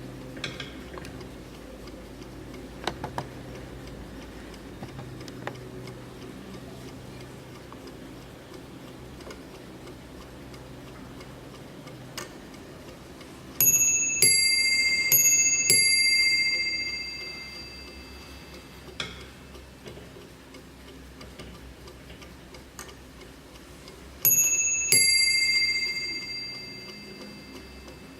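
Dutch Warmink mantel clock striking on its two bells, high then low in ding-dong pairs: two pairs about halfway through, each ringing out for a few seconds, then one more pair near the end. The clock's movement ticks softly in between.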